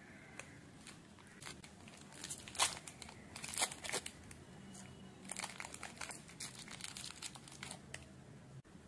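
Plastic candy wrappers crinkling in short, irregular crackles as a wrapped sweet is picked out of a pile and unwrapped.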